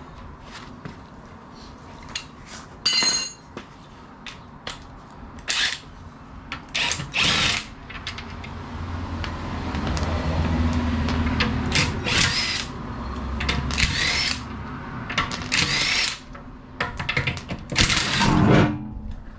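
Cordless impact wrench run in a series of short bursts with a whirring whine that winds up and down, undoing the wheel bolts.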